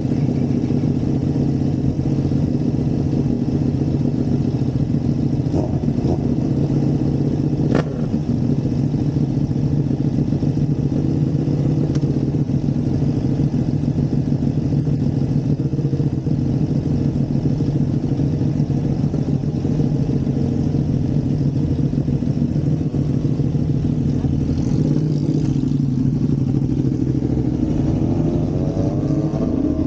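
Ducati sport bike's exhaust idling steadily alongside other motorcycles; near the end the engine note rises as the bike revs and pulls away.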